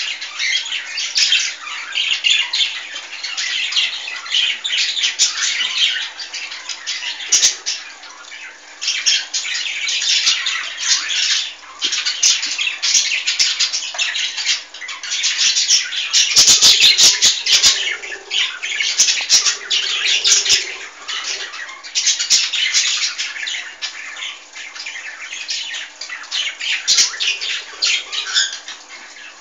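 Young cockatiel chick giving raspy squawking calls in repeated bouts with short pauses between them. About halfway through there is a quick cluster of sharp clicks.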